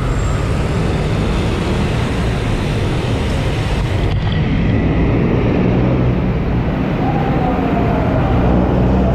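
Steady engine and road noise from a moving vehicle, a continuous low rumble.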